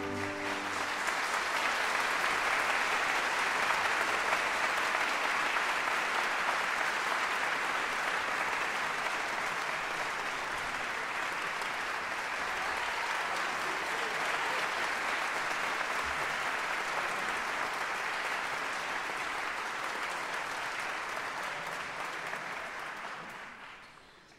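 Concert audience applauding steadily after the song ends, the last orchestral note dying away in the first moment; the applause fades out near the end.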